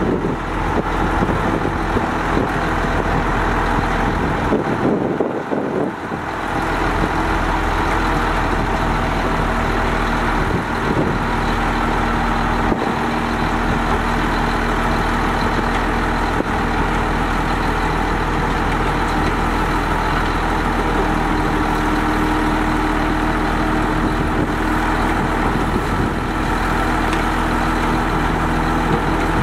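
Daewoo Novus dump truck's diesel engine running steadily while its hydraulic hoist slowly raises the loaded tipper body, the engine note dipping briefly about five seconds in.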